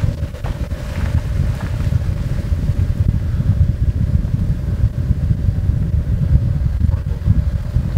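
A vehicle running: a loud, uneven low rumble with a steady mid-pitched hum over it.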